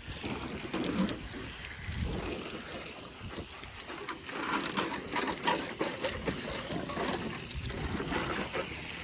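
Garden hose spraying water onto a car's body, a steady rushing splash as the car is wetted down before washing.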